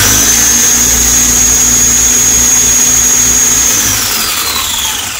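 Electric drive motor of a 1/14-scale Rlaarlo RC monster truck on a 3S battery, run up to full throttle with a rising whine. It holds a steady, high-pitched whine for about four seconds, then winds down near the end.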